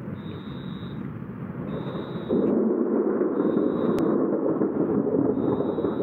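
Thunder rumbling during a thunderstorm: a steady rumble that swells suddenly about two seconds in and stays loud.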